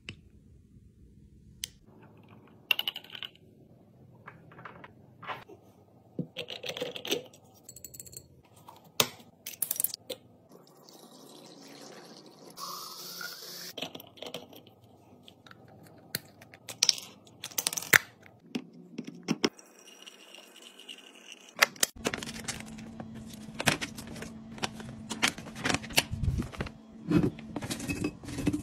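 Plastic and glass containers being handled: scattered clicks, taps and clinks. In the last several seconds there is a denser run of clicks and clinks as detergent pods are dropped from a bag into a glass jar.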